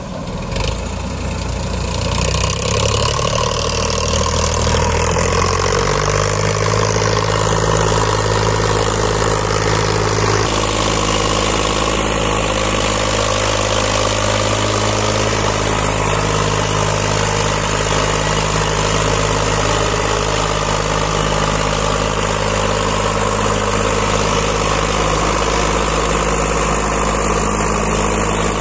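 Farmtrac 60 tractor's diesel engine running at a steady low speed as it pulls through sand with a second tractor and a loaded trolley close behind. It gets louder over the first few seconds, then holds an even pitch.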